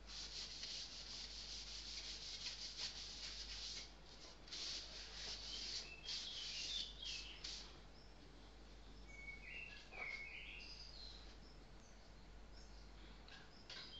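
Faint scratching and rubbing in irregular strokes for about the first seven and a half seconds. A few short bird chirps come in the background from about the middle.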